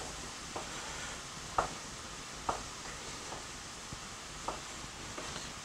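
Kitchen knife slicing tomatoes on a wooden cutting board: about five separate knocks of the blade on the board, roughly one a second, over a faint steady sizzle from a pan of vegetables frying on low heat.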